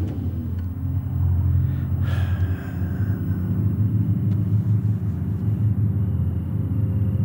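Car engine turning over on the starter, a steady low rumble that never catches: the fuel tank has been drained.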